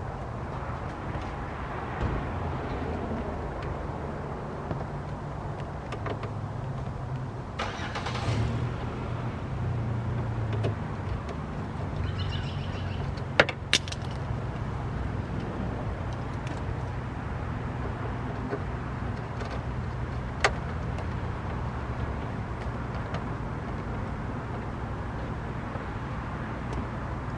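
A steady low vehicle rumble, with a few sharp plastic clicks and some handling noise as a car's interior door panel trim is screwed and snapped back into place.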